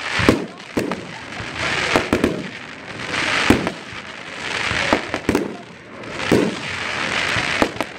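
Aerial fireworks shells bursting one after another: sharp bangs about once a second, with swells of hiss from the burning stars between them.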